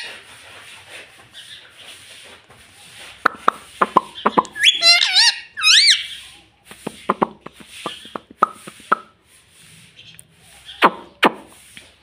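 Pet parakeet making sharp clicks and knocks, with a short run of whistled calls that rise and fall in pitch in the middle.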